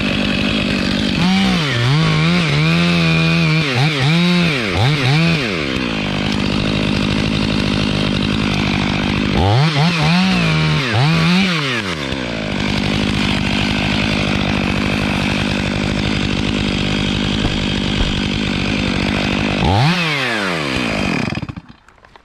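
Husqvarna 3120 chainsaw, a big single-cylinder two-stroke on a long bar, running at full throttle as it cuts through a mountain ash trunk. Its revs sag and pick up again under load in two stretches. Near the end the throttle is let off, the engine note falls away, and it goes quiet.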